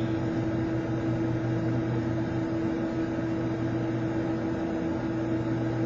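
Steady low hum with hiss, unbroken and even, with no distinct events.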